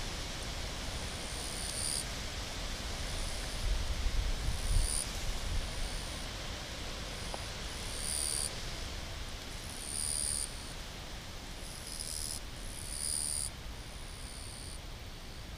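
Insects chirping in the grass in short, high-pitched bursts repeating every second or so over a steady hiss, with a brief low rumble about four seconds in.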